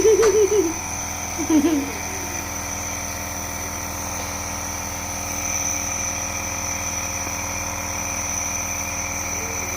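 Nebulizer's small air compressor running with a steady hum. In the first two seconds a child's voice makes a few short, wavering sounds over it.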